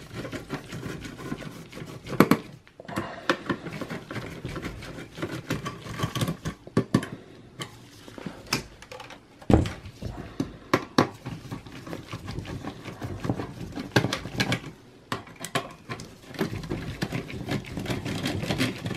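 Phillips screwdriver working the screws of a desktop PC's CPU heatsink fan: irregular clicks, taps and metal scraping inside the steel case, with a few louder knocks.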